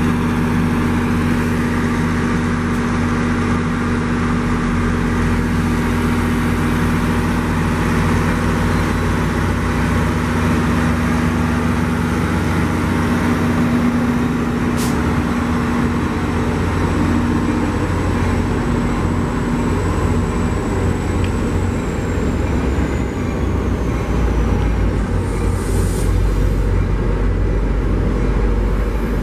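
NJ Transit diesel locomotive engine running close by, a steady drone with a hum. In the last few seconds a deeper rumble builds as the train starts to move.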